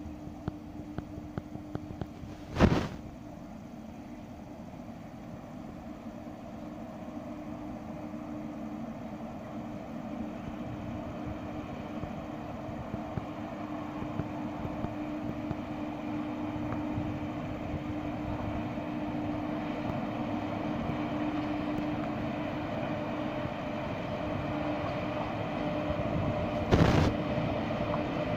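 Three WAG-7 electric locomotives hauling a freight train, heard as a steady hum with a constant tone that grows louder as they approach. Two sharp knocks stand out, about three seconds in and near the end.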